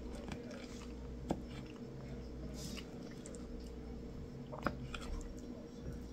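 Close-up chewing and mouth sounds of someone eating chili and rice, with two sharp clicks, one about a second in and a louder one near the end, over a faint steady hum.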